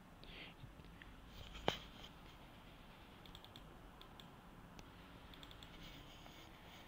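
Low room tone with one sharp click about two seconds in, then a few faint ticks.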